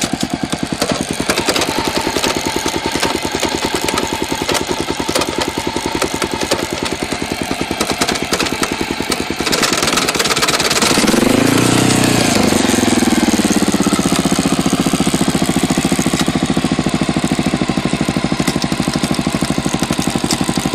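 Honda XR650L single-cylinder four-stroke engine running in gear with an even, rhythmic pulsing; about halfway through the engine note swings in pitch and then settles a little louder. The owner points to this running in second gear as where the bike starts clunking.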